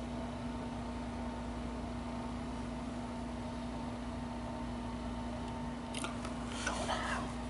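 Steady background hum, then a brief burst of clicks and rustling near the end as the camera is handled.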